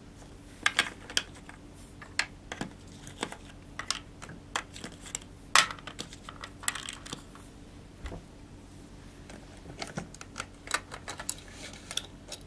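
Irregular plastic clicks and clatters from a toy crane game being handled by hand: its button pressed, and small miniature prize boxes and plastic parts knocked together.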